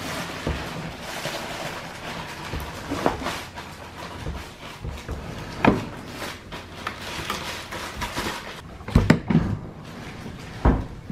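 A dishwasher being shifted and nudged into its cabinet opening by hand: scraping and rustling with several sharp knocks of the unit against the cabinet frame, the loudest a quick pair about three quarters of the way through.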